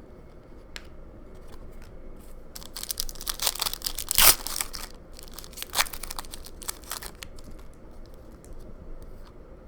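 Plastic-foil wrapper of a trading card pack being torn open and crinkled. The crinkling runs for a few seconds, with one sharp, loud crackle about four seconds in.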